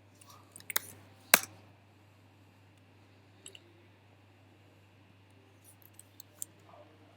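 Scattered clicks of a computer mouse: a few sharp clicks, the loudest about a second and a half in, then sparse lighter clicks later, over a low steady hum.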